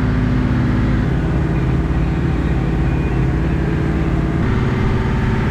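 Engine of an old 25-foot cruiser running steadily under way: an even drone whose tone shifts slightly about four seconds in.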